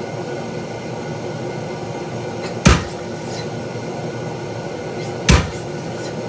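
Two heavy blows of a treadle hammer striking a spring fuller on hot 3/8-inch mild steel square bar, about two and a half seconds apart, over a steady background hum.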